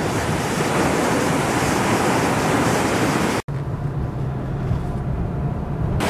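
Rough storm surf whipped up by Tropical Storm Pabuk: waves breaking and crashing over a seawall, a steady loud rush of water with wind on the microphone. The sound cuts out for an instant about three and a half seconds in, then comes back duller, with less hiss and a low rumble.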